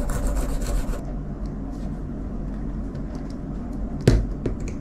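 Pen knife blade stroked quickly back and forth on a hand-held sharpening stone, a rapid rasping that stops about a second in. After that only faint scrapes and ticks, and one sharp knock about four seconds in.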